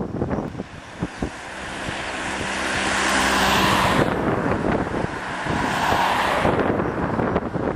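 Jet engines of a twin-engine airliner landing, growing louder as it comes in, then a steady loud roar from touchdown onward, about halfway through. Wind buffets the microphone in the first second.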